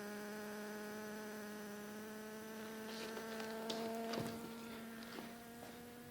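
Mackie HD1531 powered loudspeaker giving off a steady buzzing tone with overtones that creeps slowly upward in pitch, with a burst of crackles about halfway through. This is a fault noise the speaker makes whenever it is plugged into the mains, with or without a signal from the mixer.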